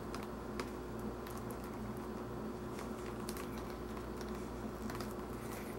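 Faint scattered ticks and rustles of a thin leather saddle string being pulled and worked through slots in the saddle's leather, over a steady low hum.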